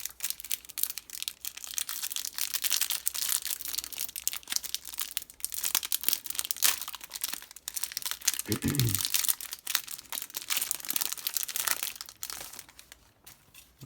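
Plastic wrapping on Yu-Gi-Oh! promo cards being crinkled and torn open by hand: dense, continuous crackling that thins out near the end.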